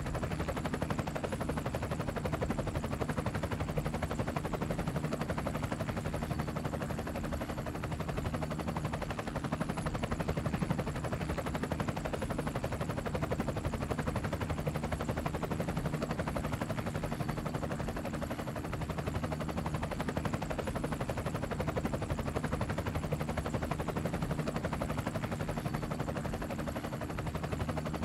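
Helicopter in flight: rotor blades chopping in a rapid, steady beat over the engine's drone.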